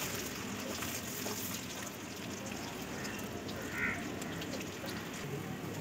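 Sliced onions sizzling steadily in hot oil in a steel kadai, frying for beresta (crisp-fried onions for biryani).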